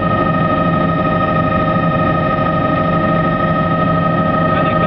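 Helicopter in flight heard from inside the cabin: loud, steady engine and rotor noise with several high, unchanging whining tones over a low rumble.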